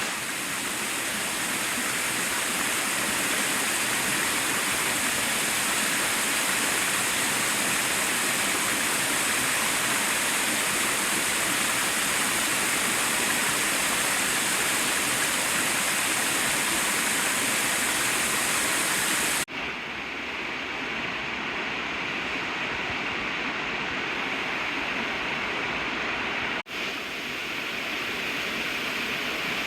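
Waterfall rushing: a steady, even noise of falling water. About two-thirds of the way through it cuts abruptly to a duller take with less hiss, and cuts again a few seconds before the end.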